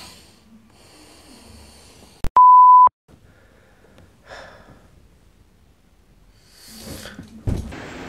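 A single loud, steady electronic beep, one pure tone about half a second long, cut in sharply like a censor bleep about two seconds in. Around it are soft breathing sounds. Near the end there is a thump, then a steady street hiss begins.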